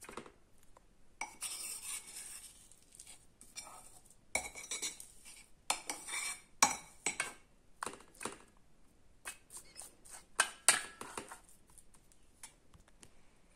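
Metal spoon scraping and tapping against a round metal baking pan and a mixing bowl as thick oat-bran dough with raisins is spooned in and spread out: irregular short scrapes and clinks.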